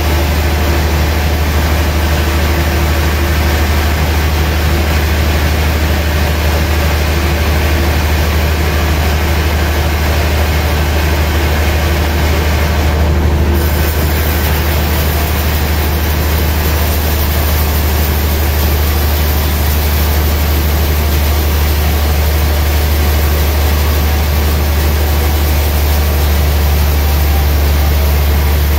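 Large vertical band sawmill running steadily, a loud low hum with a broad hiss over it.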